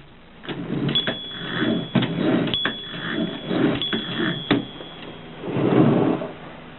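Mercedes 6 manual typewriter being handled rather than typed on: three stretches of sliding, rasping mechanical sound with sharp clicks between them.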